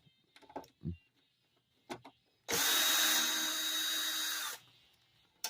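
Power drill-driver running at a steady pitch for about two seconds, backing a screw out of a flat-screen TV's back panel. A few small clicks and taps of handling come before it.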